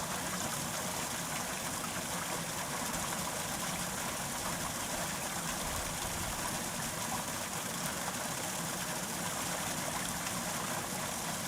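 Small brook babbling, a steady rush of flowing water.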